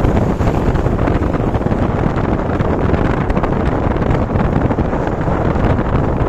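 Motorcycle riding along at steady speed: a loud, constant rush of wind buffeting the microphone, mixed with the bike's running engine and road noise.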